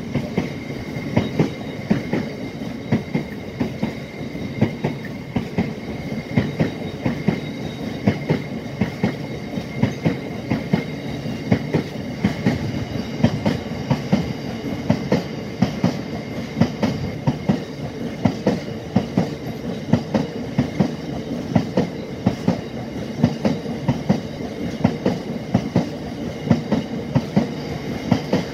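Wheels of passing container flat wagons clattering over rail joints: a steady run of paired knocks, one group about every second, over a continuous rumble. A faint steady high tone runs underneath.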